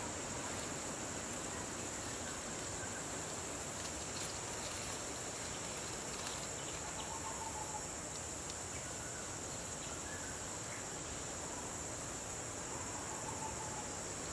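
Insect chorus at dusk: a steady, high-pitched drone over a constant hiss, with a couple of faint short calls about halfway through and near the end.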